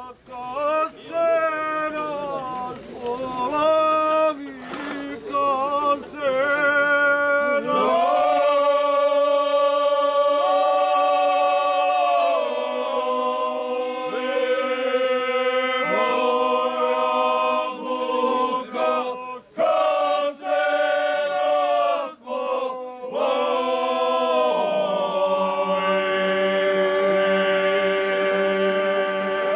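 Group of men singing a bećarac, a traditional folk song, unaccompanied. Short sung phrases at first, then from about eight seconds in long held notes in several voices in harmony, with a lower part joining near the end.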